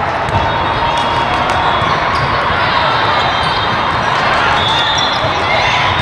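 Steady crowd chatter in a large gym during a volleyball rally, with a few sharp knocks from the ball being played, about half a second apart early on.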